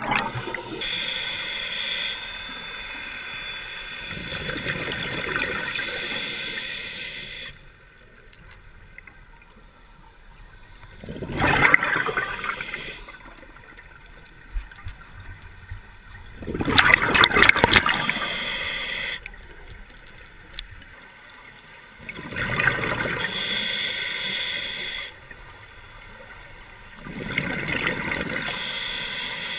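Scuba diver breathing through a regulator underwater: loud gurgling bursts of exhaled bubbles about every five to six seconds, with quieter hiss between breaths.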